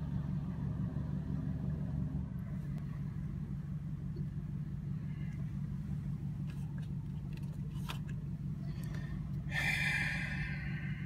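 Toyota car's engine idling steadily, heard from inside the cabin as a low rumble. A few light clicks come in the second half, and a brief hiss near the end.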